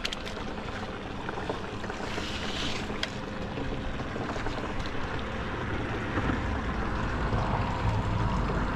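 Steady wind and a low outdoor rumble on the microphone, growing slightly louder near the end, with no distinct events.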